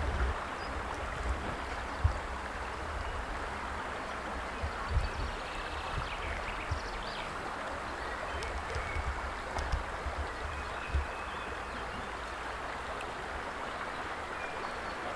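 Shallow river flowing steadily, an even rushing babble of water, with a few brief low thumps.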